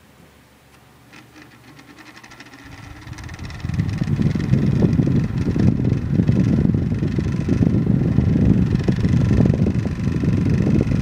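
Lakewood Model 900 10-inch desk fan switched on with a click about a second in, its motor humming up in pitch as the blades spin up. From about four seconds in, a loud steady rush of air from the fan buffets the microphone.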